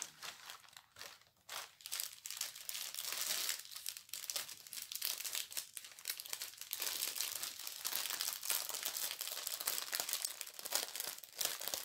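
Clear plastic packaging crinkling and rustling irregularly as a diamond painting kit is handled and unwrapped.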